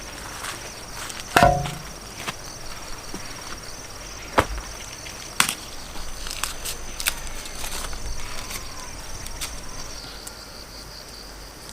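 A few sharp chopping strikes, the loudest about one and a half seconds in and two more around four and a half and five and a half seconds, with lighter knocks between. Under them runs a steady, high pulsing trill of insects.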